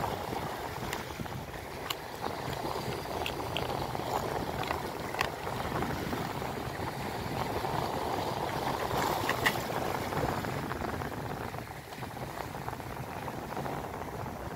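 Sea waves washing steadily against a rocky shore, with a few light plastic clicks and taps as a clear compartment lure box is opened and its small lids handled, the sharpest about nine seconds in.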